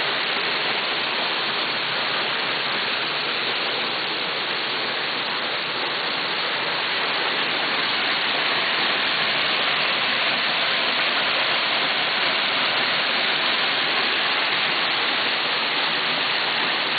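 Waterfall crashing into its plunge pool, heard up close at its base: a steady, dense rush of falling water that grows slightly louder about halfway through.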